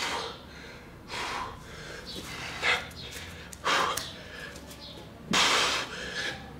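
A man breathing hard from exertion after nearly 300 push-ups: five heavy, noisy breaths about a second apart, the longest and loudest about five seconds in.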